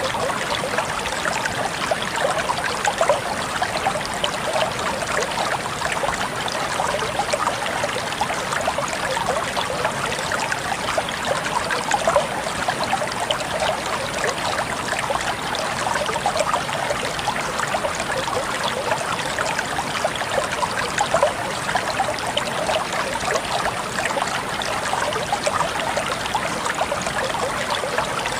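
Flowing water running and trickling steadily, a continuous babble of many small splashes with no break or change.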